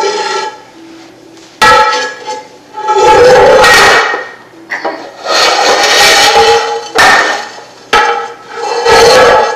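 Loud, irregular banging and clanging as a young child strikes a hard, noisy object, about six blows with ringing after them.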